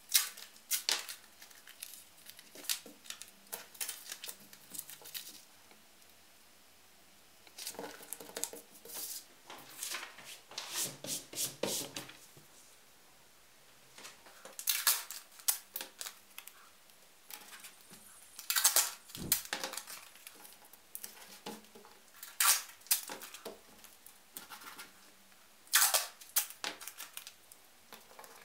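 Masking tape pulled off the roll and torn into strips, with paper pattern sheets rustling as they are handled and pressed onto leather. It comes in several bouts of short, sharp rips and crinkles, with quiet gaps between.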